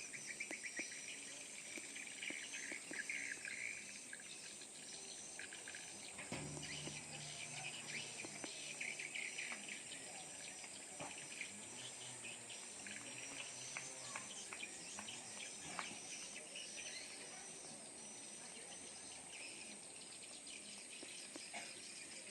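A flock of swiftlets twittering in rapid, overlapping chirps as they answer a swiftlet-house calling sound on returning to roost, over a steady high-pitched whine. A low hum joins about six seconds in.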